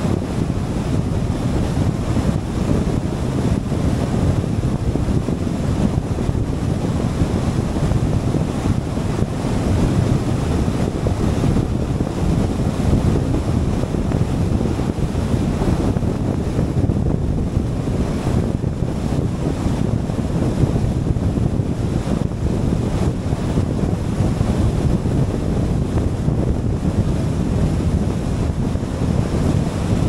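Steady wind and road noise of a car driving at speed, with wind buffeting the microphone as a constant low rumble.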